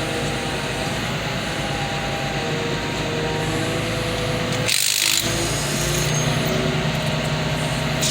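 Hydraulic car crusher running and pressing a car body, with steady machine noise and metal scraping and squealing as the body gives way. A brief hiss comes about five seconds in.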